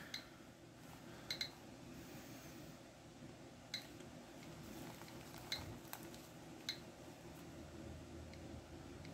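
A handful of faint, sharp clicks at irregular intervals from a handheld Geiger counter as it is held and tested, over a low steady hum.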